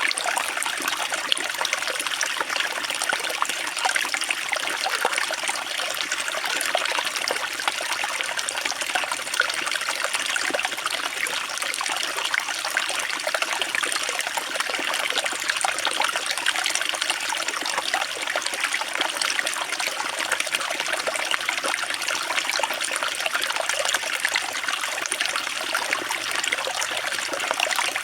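Water trickling and splashing steadily, an even, unbroken patter of many small drops.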